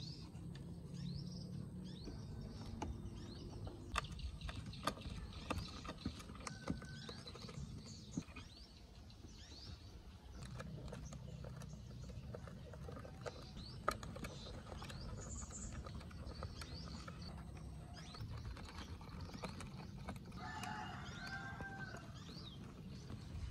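Small birds chirping in the background over a low steady hum, with scattered light clicks and scrapes as a small screwdriver works on a dirt-caked transistor radio's case.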